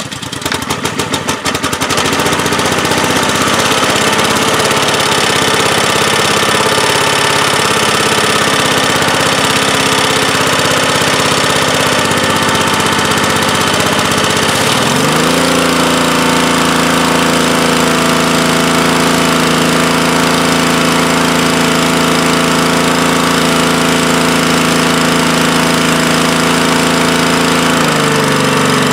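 A Honda GC190 single-cylinder pressure-washer engine starts and runs steadily, now that its compression-release cam gear has been replaced. About halfway through, its speed steps up and holds, then drops back just before the end.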